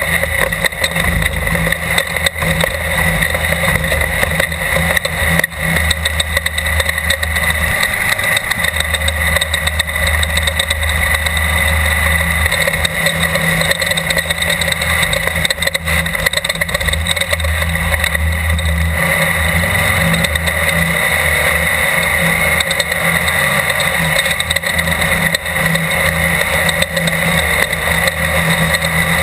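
Class 12 desert race car's engine running hard at sustained revs under racing load, loud and steady with no let-up.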